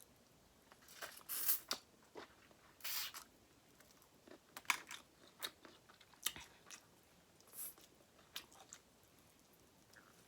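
Close-up eating of a seafood boil: irregular crunching, biting and chewing, with short sharp cracks scattered through.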